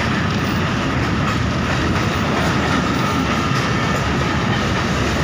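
Passenger train running: a steady, loud rumble of the moving coach with wheel and rail noise, heard from on board.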